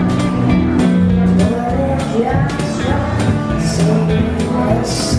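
Background music: an upbeat song with a steady beat, bass and sung or played melody.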